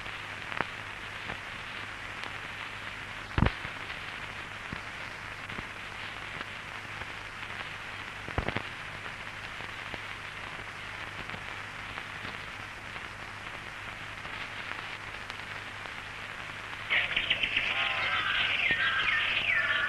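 Steady hiss and low hum of an old film soundtrack, broken by a few sharp clicks. About seventeen seconds in, birds start calling loudly and busily.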